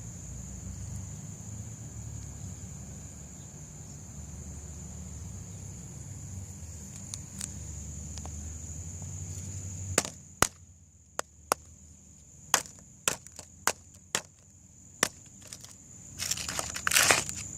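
A low rumble, then from about halfway a string of sharp, irregularly spaced cracks and knocks, and a short burst of crunching near the end. A steady high-pitched whine runs underneath throughout.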